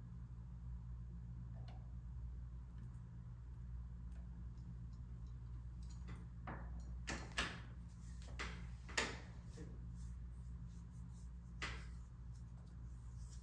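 Steady low room hum with about half a dozen light clicks and taps from painting at a wooden easel, most of them bunched between about six and nine seconds in and one more near the end.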